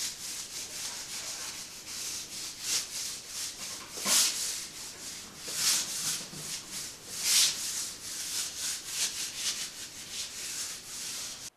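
Hand sanding with 2000-grit sandpaper over the water-based polyurethane finish on Baltic birch plywood toe-kick boards: quick back-and-forth rubbing strokes, a few of them louder. This is a light final pass to smooth small imperfections in the semi-gloss finish.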